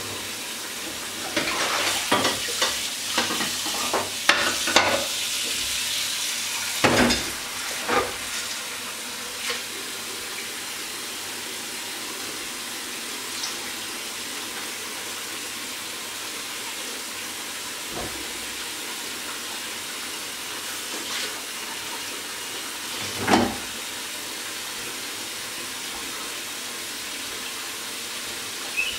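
Ceramic plates and dishes clinking and clattering as they are handled and stacked at a kitchen sink, over a steady hiss. The clatter comes thickly in the first third and then gives way to the hiss, broken by an odd knock and one louder thud near the end.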